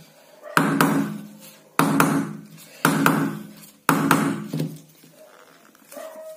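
Pliers knocking lightly on the plastic body of an LED bulb, four sharp knocks about a second apart, each ringing briefly. The taps are meant to loosen the bulb's diffuser dome.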